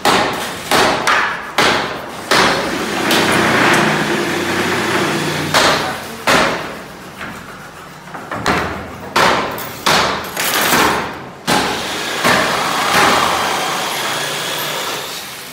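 Woodworking shop noise: a run of sharp knocks of wooden pieces striking against each other and the bench, several in quick succession, between stretches of steady power-tool noise.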